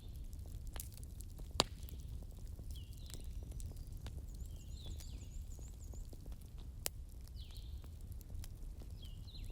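Wood fire crackling in a fireplace: a steady low rumble of the flames with scattered crackles and sharp pops, the loudest about a second and a half in and another near seven seconds. Faint high chirps sound now and then behind it.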